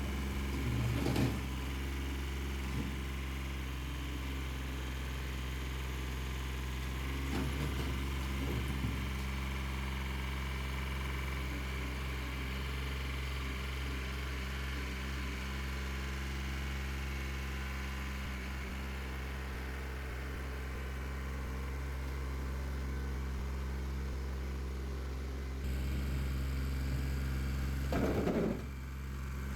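Small gas engine of a towable backhoe trencher running steadily, with a few brief scrapes or knocks and a slight rise in level near the end.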